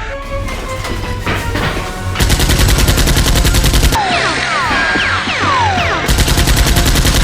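Two long bursts of rapid machine-gun fire, a sound effect laid over background music. The first burst comes about two seconds in and the second near the end, with quick high falling whistles between them.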